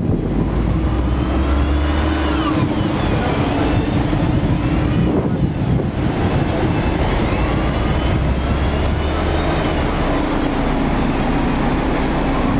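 Hong Kong double-decker electric tram running along its tracks, heard from the upper deck: a steady rumble and low hum with several high whines that rise and fall.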